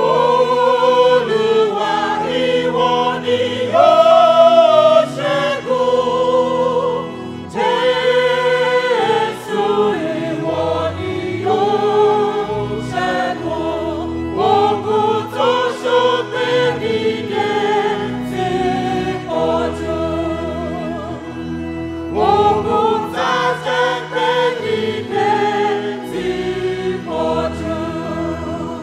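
Church choir singing a Yoruba hymn in harmony, voices amplified through handheld microphones, over electronic keyboard accompaniment.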